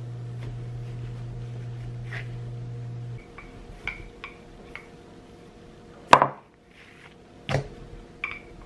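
Wooden rolling pin working cookie dough on a silicone pastry mat over a wooden board: soft taps and clicks of the pin, with two sharper knocks, the louder about six seconds in and another a second and a half later. A steady low hum runs for the first three seconds, then stops.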